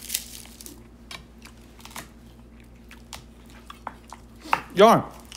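Chef's knife chopping garlic cloves on a wooden cutting board: irregular crisp taps, about two a second, after a short crackle of papery garlic skin being peeled at the start.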